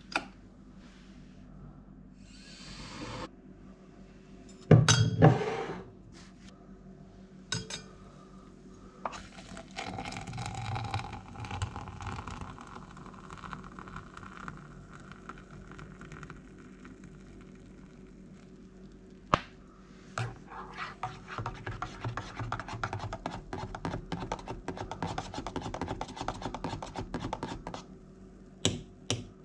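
Making a hot drink: a click as the electric kettle is switched on, a loud knock about five seconds in, hot water poured from the kettle into a stainless steel tumbler around the middle, then quick rhythmic scraping as the drink is stirred in the metal cup near the end.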